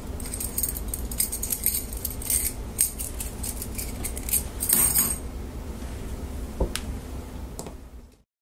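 Thin bent steel bars clinking and jangling against each other as they are handled, with the densest, loudest rattle about five seconds in. Then come two single clicks as the bars are set down, over a steady low hum, before the sound fades out just before the end.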